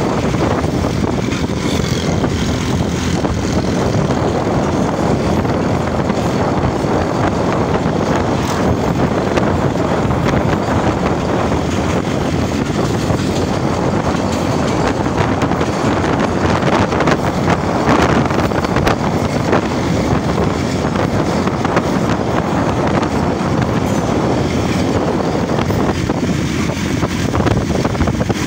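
Hazara Express passenger train running, a steady loud rumble and rush of noise from the moving carriage, with a brief louder swell about eighteen seconds in.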